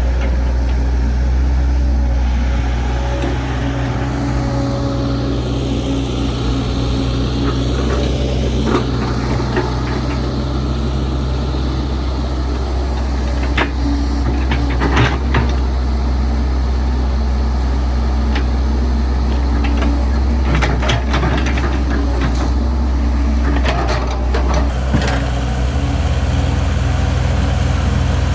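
Heavy machinery diesel engine running steadily, with scattered sharp metallic clanks now and then.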